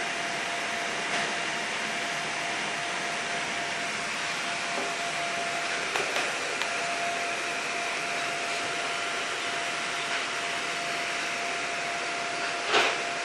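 Steady running noise inside a monorail passenger car: an even hum with a constant mid-pitched whine, a few faint clicks, and a short knock near the end.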